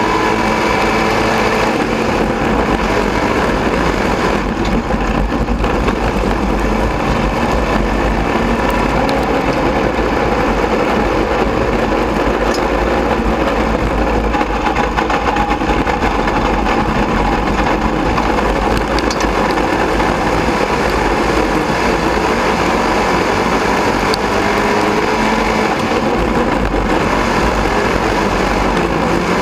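Sport Mod dirt-track race car engine running hard at racing speed, heard from inside the cockpit. The revs rise and fall continuously, with steady road and wind noise underneath.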